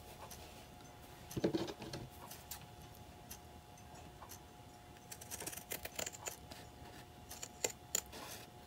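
Small scissors snipping through painted fabric: faint, scattered clicks of the blades closing, with a louder handling noise about a second and a half in and quicker snips in the second half.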